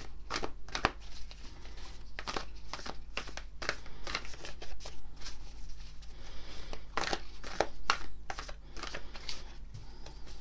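A deck of large, stiff cardboard tarot cards being shuffled by hand: an irregular run of flicking, rustling card clicks.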